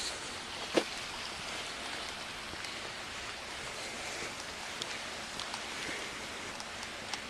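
Steady hiss of a pressure washer's water spray hitting a surface, with one sharp knock a little under a second in.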